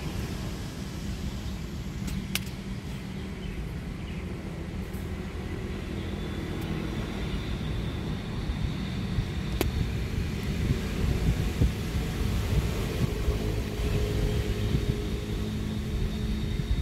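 Steady low rumble of distant road traffic mixed with wind on the microphone, swelling slightly toward the end, with a few faint clicks.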